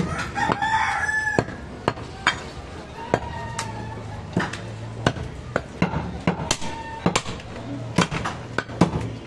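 A heavy butcher's knife chops mutton into pieces on a wooden tree-stump block, with sharp knocks at roughly two a second. A rooster crows once near the start, and a chicken calls briefly a couple more times.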